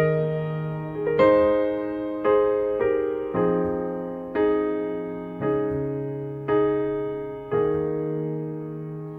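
Piano playing slow chords, a new chord struck about once a second and each left to fade: the instrumental opening of a slow love ballad.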